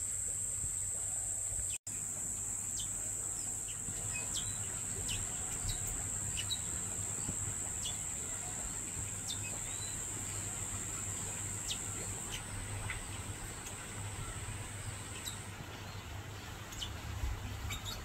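Steady high-pitched insect buzz, with small birds giving short, falling chirps every second or so. The sound cuts out for an instant about two seconds in, and the buzz thins about two-thirds of the way through.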